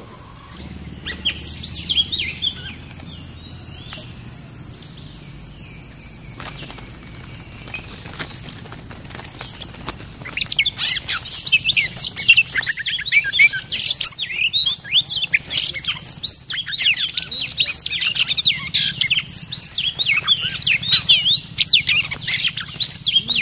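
Oriental magpie-robins calling, sparse at first over a steady high drone, then from about ten seconds in a dense, loud run of fast, varied whistles and chattering notes: the aggressive calling of a territorial male confronting a caged decoy.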